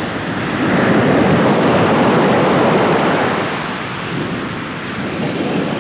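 Surf washing on a beach: a loud, even rushing that swells over the first two seconds and slowly eases after about three.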